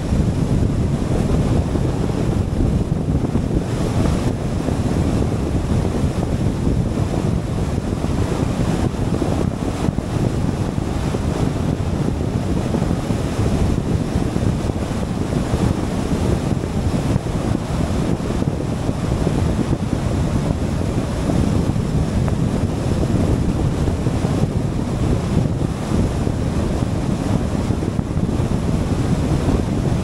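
Steady wind noise buffeting the camera's microphone, mixed with the low rumble of tyres and road from a car driving at freeway speed.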